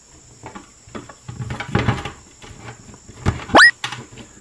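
Hands handling plastic toy insects and a mesh-covered squishy ball in a plastic tray: irregular rustling, clicks and knocks, with a short rising squeak a little past three seconds in.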